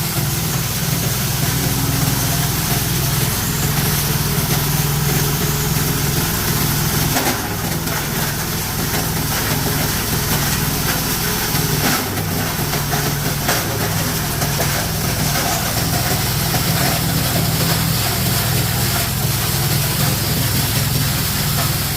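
Plastic crusher machine running steadily under load, with a constant low drive hum and scattered sharp cracks as pieces of plastic drum and chair are chopped.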